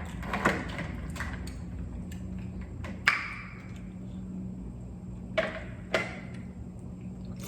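A few sharp clicks and clinks of tableware as food is handled, the one about three seconds in ringing briefly, over a steady low hum.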